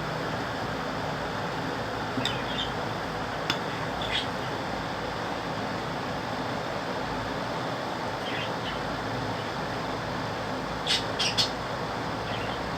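A steady hiss with a few short, high glass-like clinks scattered through it, a quick cluster of them near the end.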